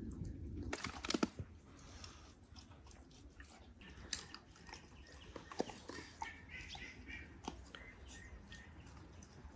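Quiet eating: scattered clicks and taps of hands and cutlery on plates, and chewing, with a few faint bird chirps. The loudest is a quick cluster of clicks about a second in.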